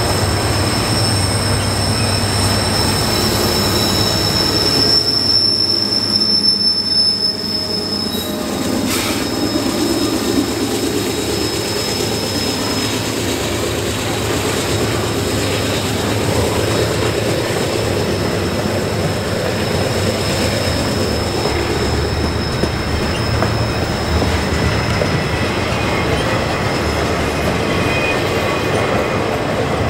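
Freight train of double-stack container well cars rolling past on a curve: a steady rumble and clatter of steel wheels on the rails, with a thin, high, steady squeal from the wheel flanges grinding against the curved rail. The squeal is strongest in the first eight seconds or so and fainter after.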